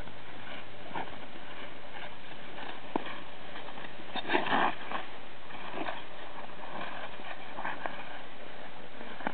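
Ice skate blades scraping on rough, scored natural pond ice in irregular strokes, with a louder cluster of scrapes about four and a half seconds in, over a steady hiss.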